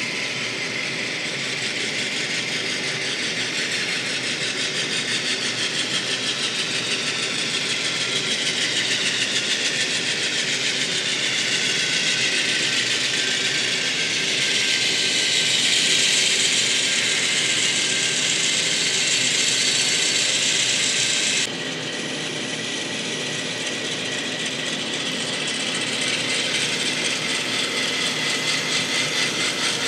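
N-scale model train locomotives running on the layout track: a steady mechanical whir of motors, gears and wheels with a fast fine clicking and a slowly gliding high whine. It grows louder as the train comes closer, then drops suddenly about two-thirds of the way through.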